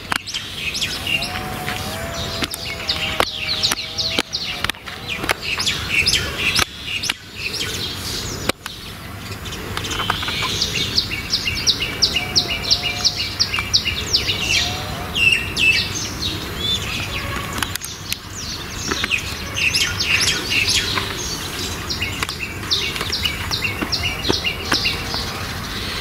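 Birds chirping, with long runs of rapid, evenly repeated high chirps.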